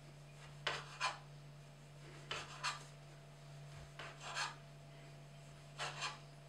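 A kitchen knife chopping rolled-out homemade noodle dough on a cutting board: short scraping strokes coming in quick pairs, four pairs about every second and a half.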